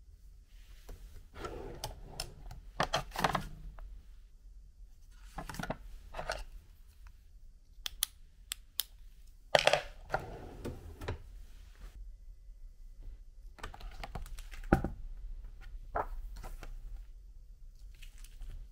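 A wooden desk drawer on metal runners being slid open and shut, with several spells of clicks, scrapes and knocks as a hand handles a paper notepad and pen inside it.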